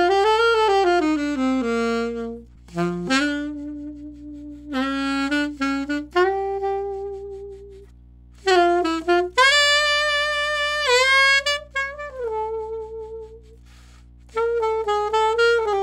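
Alto saxophone played through a Boston Sax Shop M-Series hard rubber mouthpiece with a 3.5 reed: a run of held notes and short phrases with pauses between, the loudest a high held note about ten seconds in. A faint steady electrical buzz from an unmuted audio interface track sits underneath.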